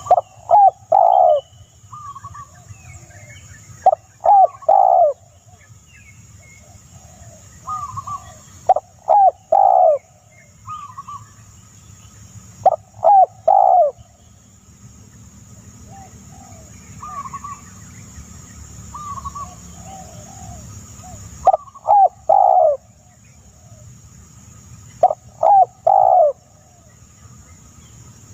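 Bird calling in short, loud groups of quick low notes repeated every few seconds, with softer single higher notes in between.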